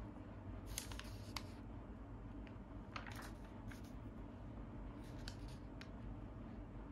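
Pages of a paperback comic magazine turned and smoothed by hand: a few short papery swishes and rustles over a faint steady hum.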